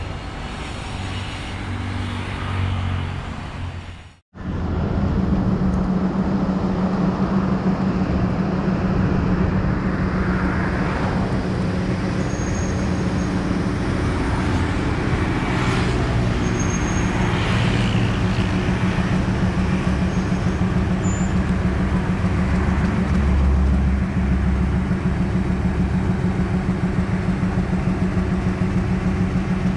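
Road traffic for the first few seconds, then a Class M6 diesel-electric locomotive's engine running with a steady drone as it hauls a mixed passenger train slowly past.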